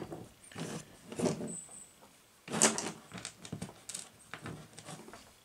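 Handling noise from a tractor magneto being turned and set down on a plastic truck bed liner: a series of knocks, clicks and scrapes, the loudest about two and a half seconds in.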